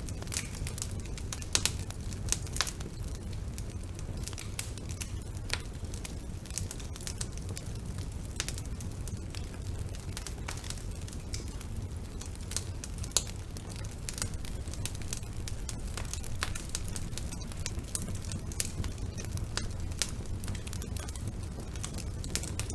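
Wood fire burning in a fireplace: a steady low rumble of flame with irregular crackles and snaps, a few sharper pops among them.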